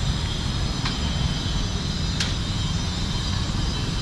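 Wind buffeting the camera's microphone: a steady, uneven low rumble while walking outdoors, with two faint ticks about one and two seconds in.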